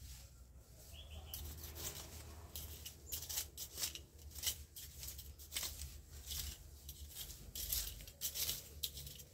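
Irregular dry rustling and crackling, with a steady low rumble underneath.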